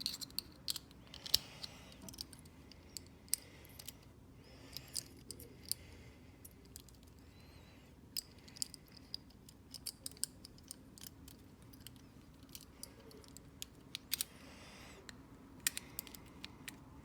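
Small metal parts of a pin tumbler cabinet lock being handled and fitted during reassembly: many short, light metallic clicks and ticks at uneven intervals.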